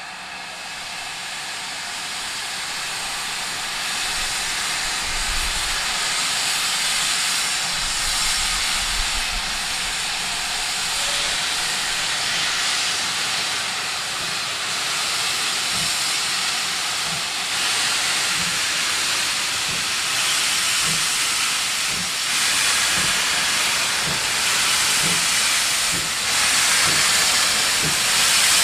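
Two-cylinder GWR Manor class 4-6-0 steam locomotive 7822 'Foxcote Manor' getting under way with its cylinder drain cocks open: a loud, steady hiss of steam that builds over the first few seconds. From about halfway through, soft low beats come about once a second as the engine moves slowly.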